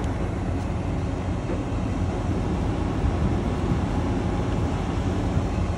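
New Holland twin-rotor combine harvester's engine running steadily, a constant low mechanical drone.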